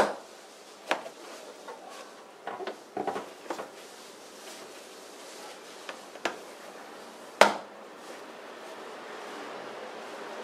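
Sharp plastic clicks and knocks from a Mercedes W210 bonnet's cabin air intake duct and its trim as hands press and work along its edge. There is a short cluster of knocks about three seconds in, and the loudest snap comes about seven seconds in.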